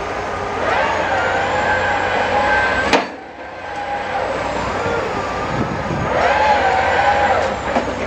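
Heavy construction machinery at work: a steady diesel rumble with a whining tone of several pitches that rises, holds for about two seconds and stops, twice. A sharp click about three seconds in.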